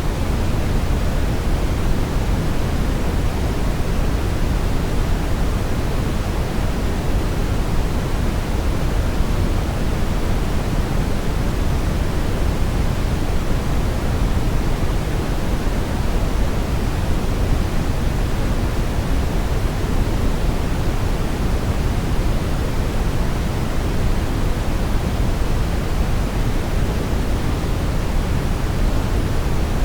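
Synthetic brown noise: a steady, unbroken rumbling hiss with most of its energy in the deep low end, thinning toward the top.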